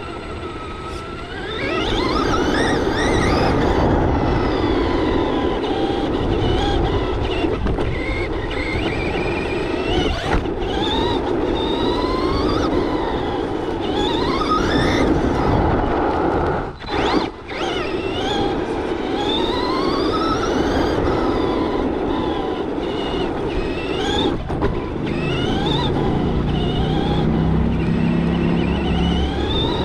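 Traxxas Slash 2WD RC truck's electric motor and drivetrain whining, rising in pitch again and again as the throttle is applied, over a steady rumble of tyres on rough asphalt and gravel.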